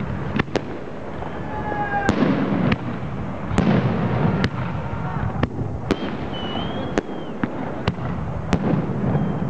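New Year fireworks going off: many sharp bangs in quick, irregular succession, a dozen or more. Two whistling tones come through, one about one and a half seconds in and a wavering one around six to seven seconds in.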